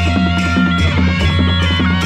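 Nepali panche baja folk band playing a dance rhythm: dholaki barrel drums and a small tyamko kettle drum beaten with sticks, jhyali cymbals clashing on a steady beat about two to three times a second, under a held, reedy wind melody.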